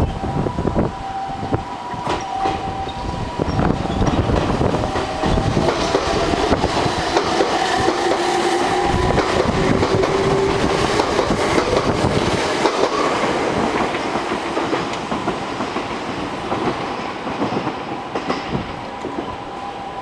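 A red Meitetsu electric train passing close by, its wheels clattering over the rail joints, with a motor whine that rises in pitch midway. A level-crossing warning bell rings steadily at the start and again near the end.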